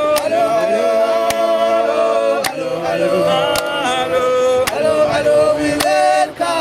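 Vocal music: several voices sing long, held notes over a steady beat that falls about once a second.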